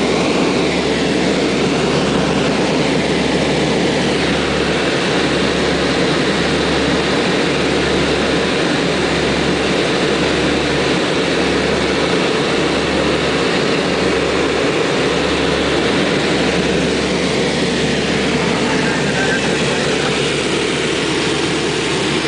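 Cabin drone of a Gulfstream American GA-7 Cougar in cruise flight: its two Lycoming O-320 four-cylinder piston engines and propellers running steadily. The low hum swells and dips about once a second, the beat of two propellers turning at slightly different speeds.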